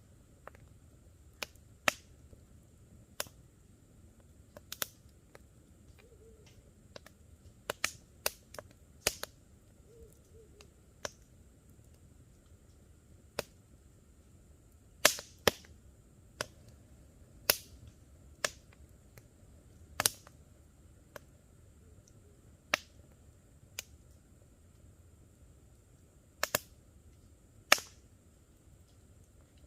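Wood campfire crackling: irregular sharp pops and snaps a second or a few seconds apart, some in quick clusters, over a faint low rush of flames.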